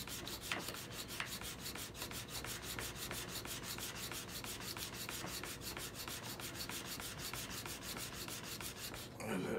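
MPOWER FastTrack Mk2 chisel sharpener: the abrasive stone in its sliding carrier scrapes back and forth over the steel bevel of an old, nicked chisel in a quick, even rhythm of rasping strokes, about five or six a second. This is the stone grinding the bevel down to take out nicks in the edge.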